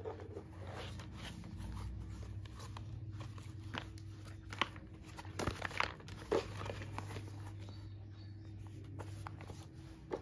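Hands turning over and handling a small cardboard parcel: scattered crinkles, scrapes and taps of the cardboard and tape, a few sharper ones around the middle, over a steady low hum.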